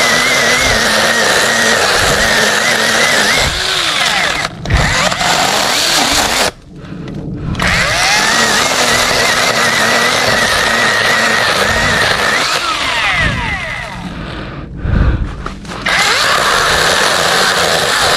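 Cordless electric mini chainsaw cutting into a longan tree trunk, its motor whine wavering in pitch as the chain works through the wood. Twice the motor stops for about a second, a third of the way in and past three quarters, then runs on.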